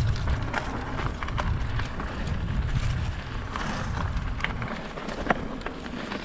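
Mountain bike riding over a rough trail: wind buffeting the microphone, with tyre rumble and scattered clicks and knocks of the bike rattling.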